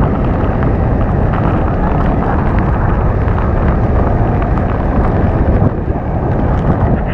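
Steady loud roar of rushing water from the waterfalls, with wind buffeting the microphone.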